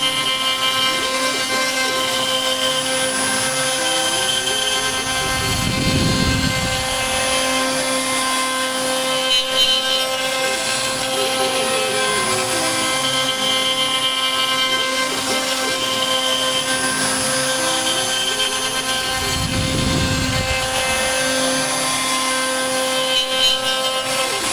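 CNC router milling wood with a ball nose cutter on a 3D finishing pass. The spindle gives a steady whine, while the stepper motors' tone steps up and down in pitch as the axes change speed. A louder rush of cutting noise swells twice, about 6 and 20 seconds in.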